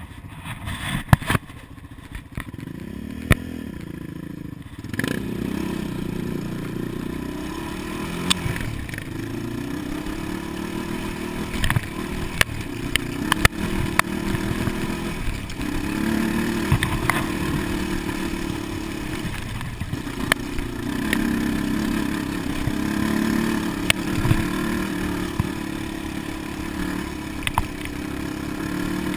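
Quad (ATV) engine being ridden over sand, heard from the rider's chest, revving up and down with scattered clicks and rattles. About five seconds in it gets louder and keeps rising and falling in pitch.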